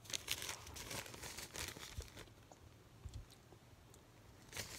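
Clear plastic zip-top bag crinkling as it is handled and moved, a run of irregular crackles over the first two seconds and again near the end.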